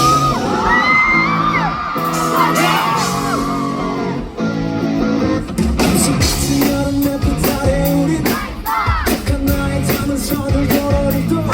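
Live rock band playing a song's opening, with the drums coming in on a steady beat about five seconds in, while the audience screams and cheers.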